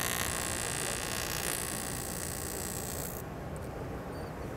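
TIG welding arc on aluminum, a steady hiss. About three seconds in, the high part of the hiss cuts out, leaving a duller, quieter noise.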